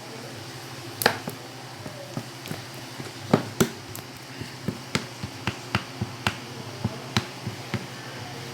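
A kitchen utensil knocking and tapping against a container while the last of the blender-bread batter is scraped out onto the filling: about a dozen sharp, irregular knocks, the loudest about a third of the way in.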